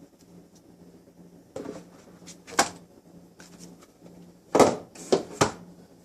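Knocks and clunks of handling as a tablet in its keyboard dock and a netbook are moved about on a hard surface, a few single knocks early on and a quick cluster of three about four and a half to five and a half seconds in, over a faint steady hum.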